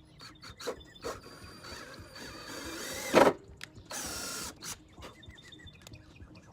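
Scattered mechanical clicks and knocks, with one loud knock about three seconds in and a short burst of hissing noise about a second later.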